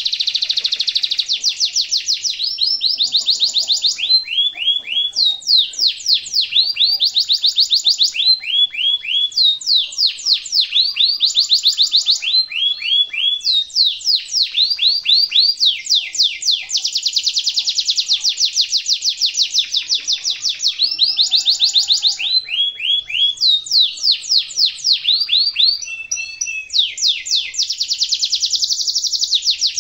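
Domestic canary singing a long, unbroken song of high rapid trills and rolls. Each phrase is a run of quickly repeated notes, some of them falling sweeps, and the phrase changes every second or two.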